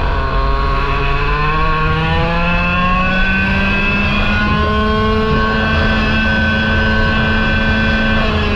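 Parilla SS20 100cc two-stroke kart engine heard onboard, revs climbing over the first few seconds as the kart pulls out of a corner, then held steady at high revs along the straight.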